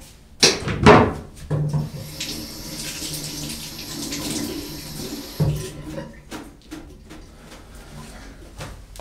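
Kitchen tap running into a stainless-steel sink for about three and a half seconds. Loud knocks come just before it starts, and another knock comes as it stops.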